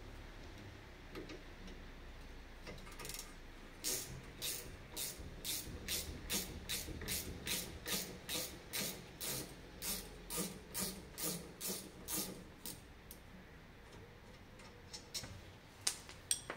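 Hand ratchet wrench being worked on a bolt of the van's rear brake, a short rasp of pawl clicks on each swing at about two to three strokes a second for some ten seconds, then a few slower, separate clicks near the end.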